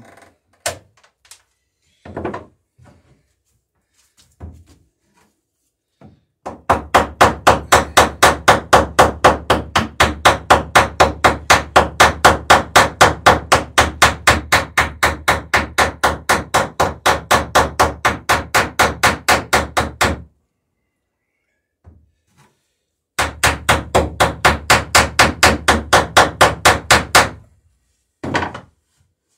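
Hammer peening rivets on a wooden boat's planking: a long run of quick, even strikes, about four a second, then a short pause and a second shorter run. A few separate knocks come first.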